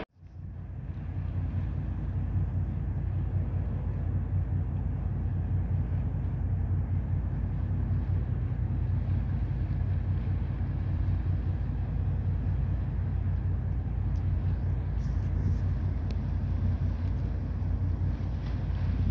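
Large ship's engine running with a steady low drone and a constant hum.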